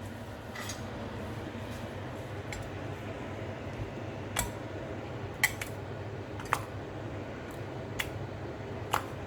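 A utensil knocking and clinking against the pot at irregular intervals as cooked tur dal is mashed, over a steady low hum.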